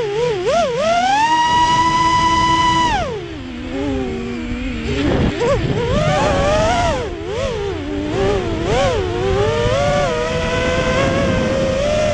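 FPV racing quadcopter's four Emax 2205 2600kV brushless motors with three-blade props whining, the pitch wobbling up and down with quick throttle changes. About a second in it rises to a high steady whine held for about two seconds at full throttle, drops sharply about three seconds in, then wobbles again and settles.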